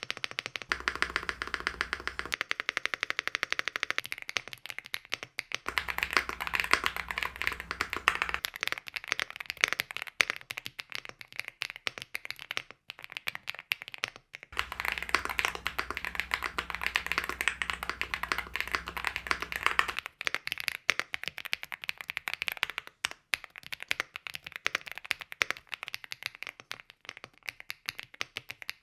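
Fast, continuous typing on Rainy75 aluminium-case mechanical keyboards with stock linear switches, a dense run of key clacks. The sound changes character at a few points as different versions are typed in turn, and some stretches carry a faint low hum.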